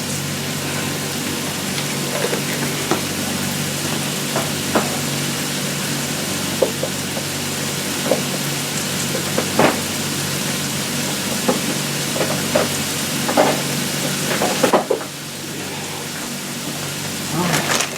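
Bell peppers and onions frying in a pan, a steady sizzle with scattered light clicks and knocks; the sizzle turns quieter about fifteen seconds in.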